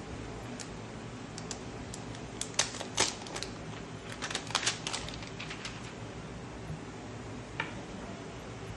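Thin protective plastic film crackling as it is peeled off the back of a new smartphone: a burst of sharp crackles about two and a half seconds in, another spread of crackles a little after four seconds, and a lone click near the end.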